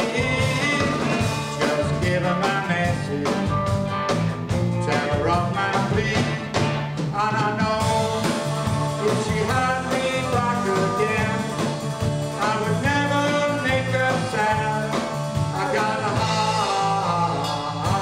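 Live band playing a sixties rhythm-and-blues song, with electric guitar and a male lead singer.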